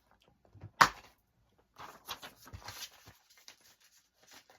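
Plastic DVD case being handled, with a sharp click about a second in and then a run of small knocks and rustles.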